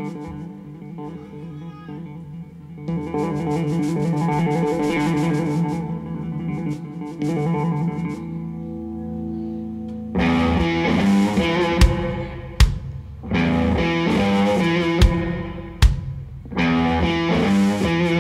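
Live rock band: a semi-hollow electric guitar plays alone at first, picking a fast repeated figure. About ten seconds in, the full band with drum kit comes in louder, with sharp accented hits.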